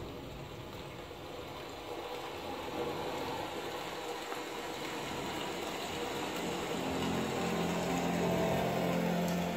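Dolby Atmos demo reel soundtrack playing through a home-theater speaker system: a noisy wash of sound effects that slowly grows louder, with held musical chords coming in about two-thirds of the way through.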